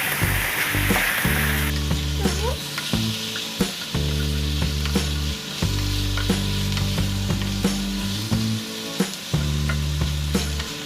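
Chicken pieces sizzling as they fry in oil in a pan, rendering out their fat, with short clicks of a utensil stirring them.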